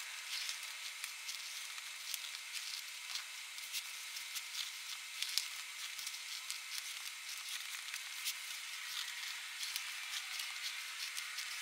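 Faint scratching and rustling of a marker tracing around a paper pattern held against the white jacket of pipe insulation: a soft crackly hiss with many small scratchy clicks.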